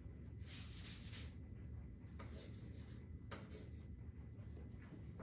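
Chalk writing on a chalkboard: a series of scratchy strokes, the longest starting about half a second in and lasting most of a second, with shorter ones around two and three seconds in.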